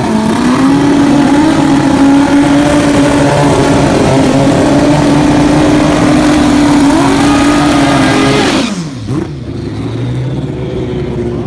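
Pro Street drag motorcycles, one a Suzuki Hayabusa, held at steady high revs on the starting line. The revs climb about seven seconds in. Near nine seconds in the bikes launch, and the sound drops off sharply and falls in pitch as they pull away down the track.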